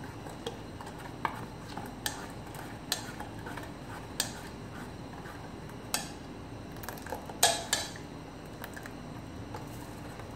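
A steel ladle stirs thick green gram dosa batter in a stainless steel pot, mixing in the salt. Scattered clinks of metal on metal sound about a dozen times, the loudest cluster a little past the middle.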